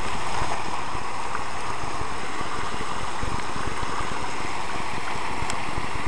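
Water falling and splashing steadily in an outdoor fountain, a constant rushing hiss.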